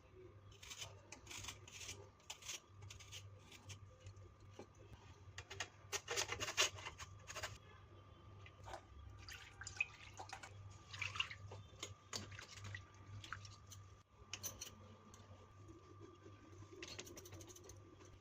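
Food preparation sounds: irregular clicks, knocks and light scrapes of potatoes being handled, with some dripping water, over a steady low hum.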